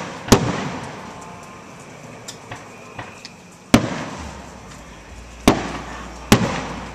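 Aerial firework shells bursting overhead: four loud bangs spread over several seconds, each trailing off in a rolling echo, with a few lighter pops between them.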